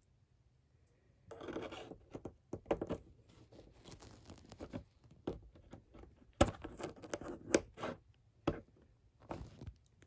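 Plastic pry tool scraping and working along the seam of an all-in-one PC's plastic back cover. From about six seconds in comes a run of sharp plastic clicks as the cover starts to come away.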